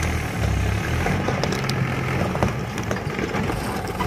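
Mahindra 415 DI tractor's four-cylinder diesel engine running under load as it pulls a fully loaded trolley of soil and rocks, with scattered rattles and clicks over the steady engine note.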